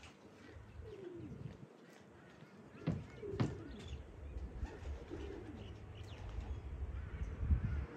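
Homing pigeons cooing, several low coos, with a couple of sharp knocks about three seconds in.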